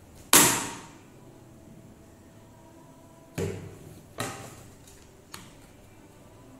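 Knocks and clatter from handling a Makita cordless chainsaw, its plastic body and the bar and chain striking a wooden tabletop. There is one loud sharp knock near the start, two more about three and a half and four seconds in, and a small click a little later.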